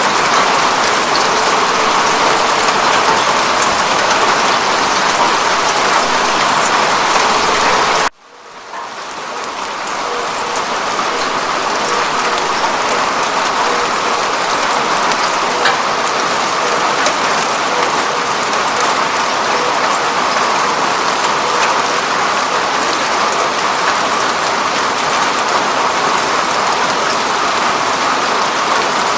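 Steady rain pattering on a window pane, a dense even hiss with fine drop ticks. It cuts out abruptly about eight seconds in and fades back up over the next few seconds.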